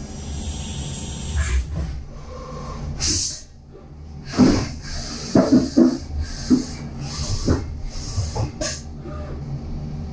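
Brother Speedio W1000Xd2 CNC machining centre running with coolant spraying: the spindle and an M8 thread mill cutting aluminium at first, then short hisses about three seconds in and again near the end, with a string of irregular knocks and clunks in between as the tilting table moves the workpiece.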